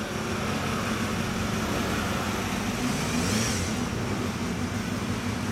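Motorcycle engines idling steadily, with the hiss of a vehicle passing on the road about three seconds in.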